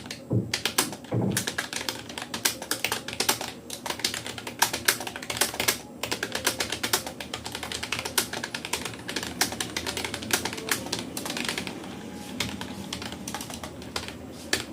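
Rapid, continuous touch-typing on a Rapoo computer keyboard: a dense, uneven stream of key clicks, several a second.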